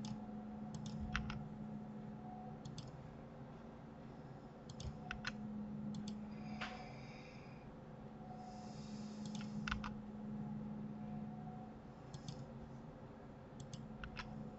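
Faint clicks of a computer mouse and keyboard, mostly in quick pairs every second or two, over a low steady hum.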